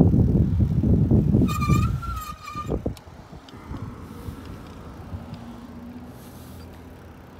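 Wind buffeting the microphone on a moving bicycle, loud for the first three seconds, with a steady high squeal in two parts about a second and a half in; after that it drops to a quieter rumble.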